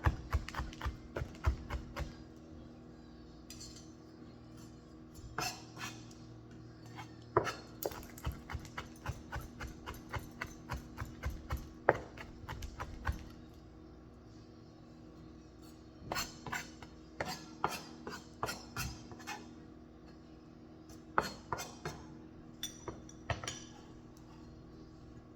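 Kitchen prep sounds: runs of sharp knocks from a knife chopping on a cutting board, with clinks of dishes and utensils, over a low steady hum.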